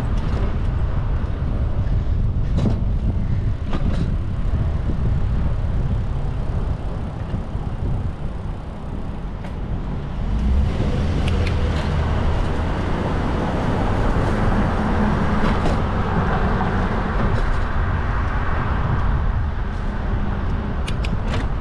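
City street traffic heard from a moving bicycle: a steady rush of car and road noise, growing louder from about ten seconds in as cars drive alongside. A few faint clicks sound in the first few seconds.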